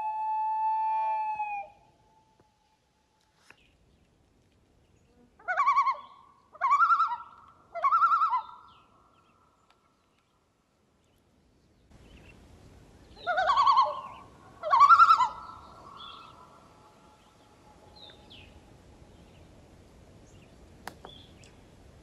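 Common loons calling. A long wailing note fades out about two seconds in, then three quavering, warbling calls come about a second apart, and two more follow in the second half over faint background hiss.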